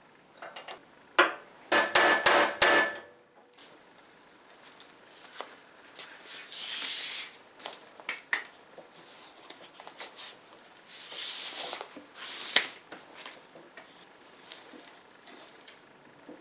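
Sharp metal knocks and clatter in the first few seconds as parts are fitted at the pallet truck's handle pivot. After that come small clicks and two longer rustling stretches as grip tape is unwound and wrapped around the steel handle.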